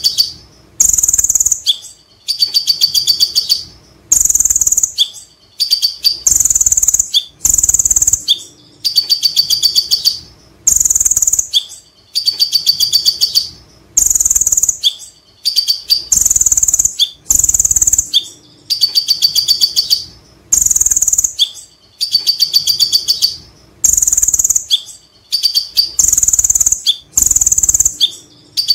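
Van Hasselt's sunbird (kolibri ninja) singing its rapid, shrill chattering song: a burst of fast trilled notes about every two seconds, repeated over and over.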